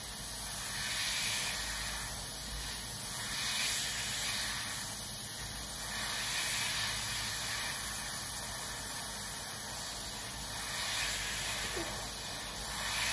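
Iwata HP-CS airbrush with a 0.35 mm nozzle at about 13 PSI, hissing as it sprays very thin dark brown paint in short passes that swell and ease every second or two, gradually building up an exhaust stain.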